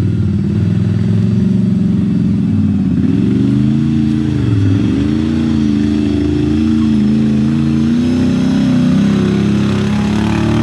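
Can-Am ATV engine running under throttle. The revs drop briefly about four seconds in, pick back up, and then hold fairly steady.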